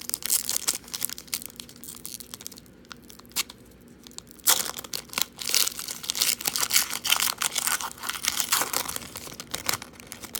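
Foil wrapper of a Donruss football card pack being torn open and crinkled by hand. There is a short burst of crinkling at the start and a longer, denser stretch of tearing and crinkling from about four and a half seconds in.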